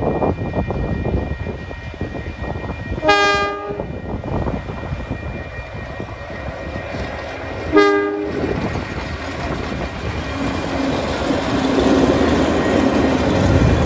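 Two DJ-class diesel-electric locomotives hauling a passenger train: the horn sounds two short blasts about four and a half seconds apart, and the engines' rumble and wheel noise grow louder near the end as the locomotives reach the level crossing.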